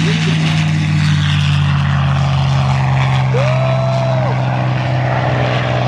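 P-51 Mustang's V12 piston engine and propeller running steadily at full takeoff power as the fighter accelerates down the runway.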